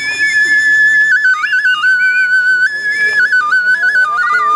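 Small clay flute blown as a steady whistling tone that steps back and forth between a few nearby notes, dropping to a lower note near the end.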